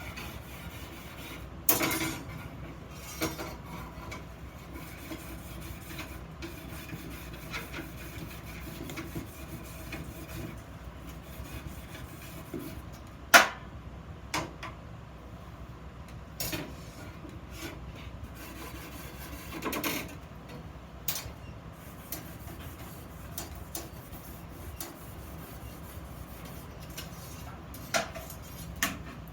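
Handling of iron workpieces in a metal shop: scattered knocks and clinks with some scraping and rubbing over a steady low hum, the sharpest knock about halfway through.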